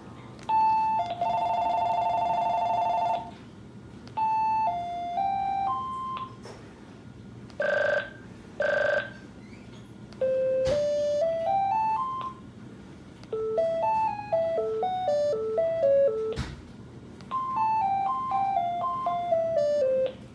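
Cell phone playing a series of short monophonic beeping ringtones one after another, with gaps between them. There is a fast warbling two-tone ring, two buzzy rings, a rising run of notes and several little melodies, with a sharp click between some of them.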